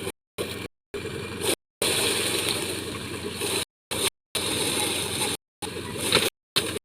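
Engine-driven rice threshing machine running with a steady engine and machine noise, broken by several sudden silent gaps.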